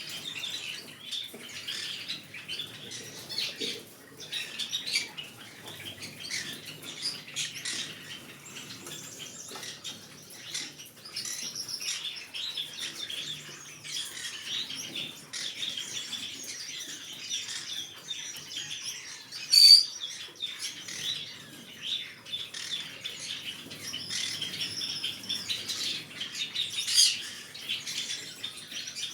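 Green-cheeked conure chattering with many quick chirps throughout, and one loud sharp squawk about two-thirds of the way through.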